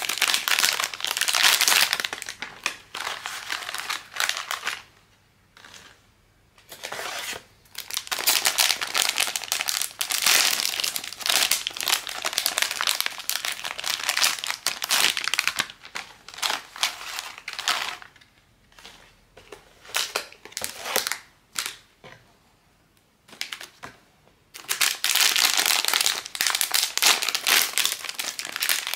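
Blind-bag packaging being crinkled and handled while it is opened, in dense bursts of crackling broken by a few short pauses.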